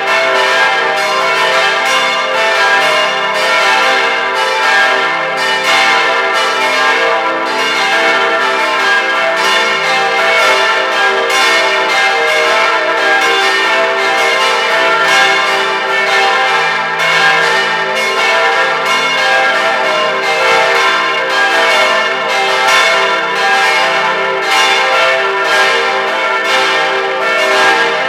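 Full peal of four 1953 Rincker bronze church bells, tuned e', g', a' and c'', swinging together on straight headstocks. Their clapper strikes overlap into loud, continuous ringing, heard close up in the bell chamber.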